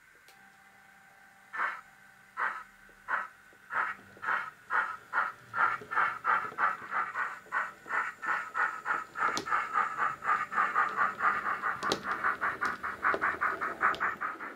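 Model LMS steam tank locomotive's DCC sound decoder playing steam exhaust chuffs through its small onboard speaker. The chuffs start slowly about a second and a half in and quicken steadily as the loco gets under way.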